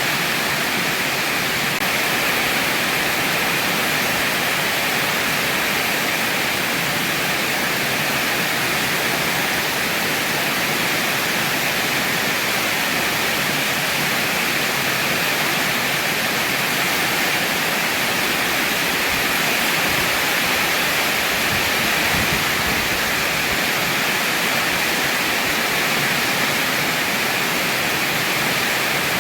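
Heavy rain falling steadily, a dense, even hiss without pause or individual drops standing out.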